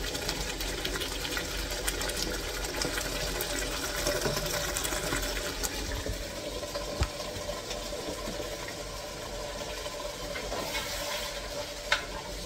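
Tomato stew simmering in a pot on the hob: a steady bubbling with many small pops over a low hum. A spoon knocks the pot once near the end.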